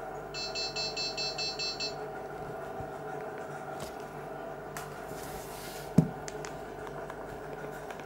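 Alcatel 2053D feature phone's speaker sounding a quick run of about eight high electronic beeps, then the phone being handled: a few clicks, a short hiss and a sharp knock about six seconds in, over a low steady hum.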